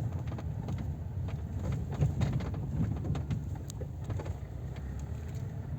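Inside a Lada Granta driving over an uneven road: a steady low rumble of road and engine, with many small creaks and knocks scattered through it from the door trim, front and rear. These are body squeaks and rattles in a car with only 22,000 km on it, which the owner blames on poor assembly.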